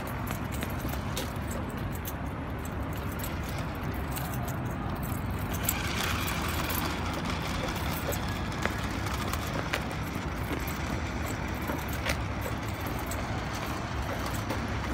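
Remote-controlled toy jeep running on a rough paved path: its small electric motor and plastic tyres make a steady rolling noise, with a few scattered clicks.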